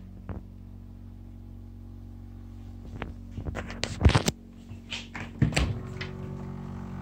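Several knocks and thumps against the wooden fittings of a caboose interior, the loudest about four seconds in and another about a second and a half later, over a steady low hum.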